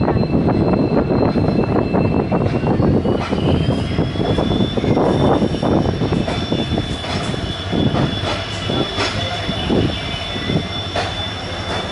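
Diesel-hauled passenger train running on the track: a steady rumble of wheels and coach with frequent short knocks. Over it is a high whine that glides up in pitch about three seconds in and then holds steady.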